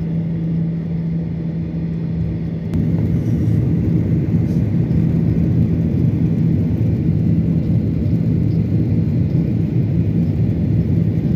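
Jet airliner heard from inside the cabin while rolling along the runway: a steady engine hum and rumble. About three seconds in it steps up to a louder, fuller rumble and holds there.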